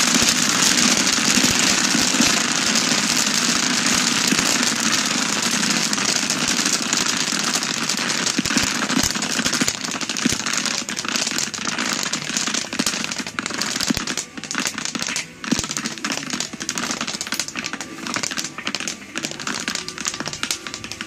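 Popcorn popping in a large pan stirred with a wooden paddle. A dense crackle of pops thins out about halfway through into separate, spaced pops, as fewer unpopped kernels remain and the batch nears the end of popping.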